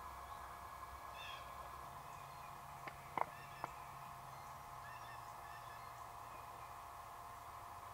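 Quiet field ambience with a faint steady hum and small birds chirping faintly, broken by three short sharp clucks about three seconds in, typical of a turkey cluck.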